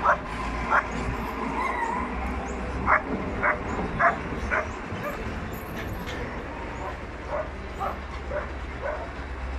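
Dogs barking: short barks every half second or so, growing fewer and fainter after about five seconds.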